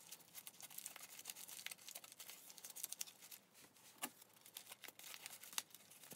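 Faint crinkling and crackling of crumpled newspaper and tape as hands press and shape a newspaper puppet head, in many small scattered crackles with a sharper one about four seconds in.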